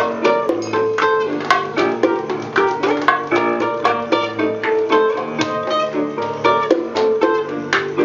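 Acoustic guitar played live: a quick instrumental run of plucked notes at a steady pace, with no singing.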